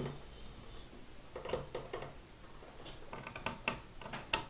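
Screwdriver turning a bolt through a rifle's side plate and into the wooden stock: faint clicks and scrapes in short clusters, starting about a second and a half in and coming more often near the end.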